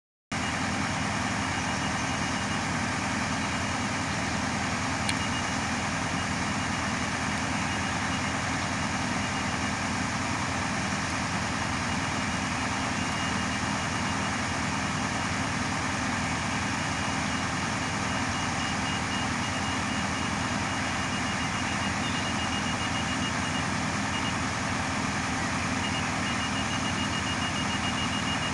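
Heavy road-works machinery running steadily, a constant diesel engine drone. A high-pitched beeping comes and goes over it.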